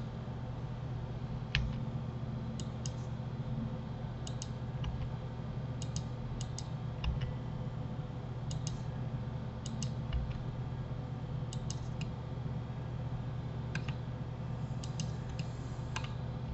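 Scattered clicks of a computer mouse and keyboard, many of them in quick pairs, over a steady low electrical hum.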